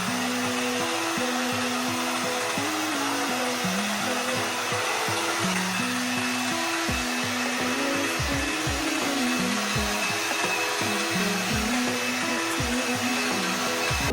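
Hair dryer blowing steadily, a constant rushing hiss with a faint whine, over background music. It is most likely drying the lace glue during a wig install.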